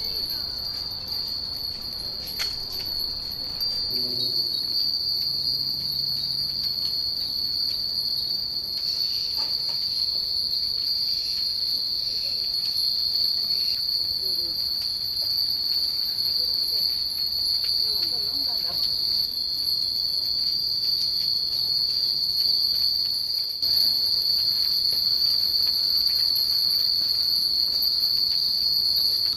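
A steady, high-pitched insect drone runs throughout and grows a little louder about three-quarters of the way through. Under it, many hanging Japanese wind chimes (fūrin) tinkle lightly and irregularly.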